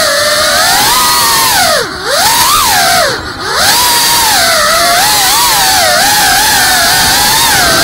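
GEPRC FPV quadcopter's brushless motors and propellers whining, the pitch rising and falling with the throttle. Twice, about two seconds in and again about three seconds in, the throttle is cut briefly and the whine drops in pitch and loudness before spooling back up.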